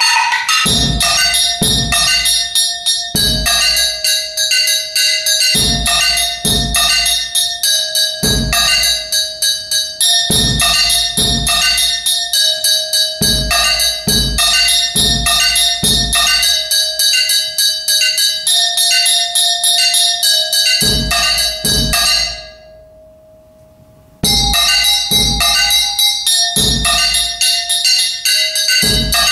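Solo percussion on struck metal objects: a fast, steady stream of ringing metallic clanks, with low pedal bass drum thumps falling in twos and threes beneath them. About 22 seconds in, the playing stops for a second and a half, leaving one low ring, then starts again.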